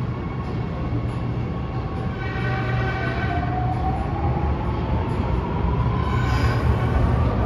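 Shenzhen Metro Line 2 train pulling out of a station: steady rumble of the running gear, with the traction motors' whine rising steadily in pitch as it accelerates. Two brief high-pitched squeals, about two seconds in and about six seconds in, fit the abnormal pantograph noise this train is noted for.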